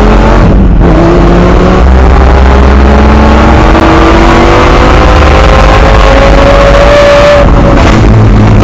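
Lamborghini engine accelerating hard, with a brief break and drop in pitch about a second in, then one long steady climb in pitch that breaks off near the end. Loud wind rush from the open cockpit runs under it.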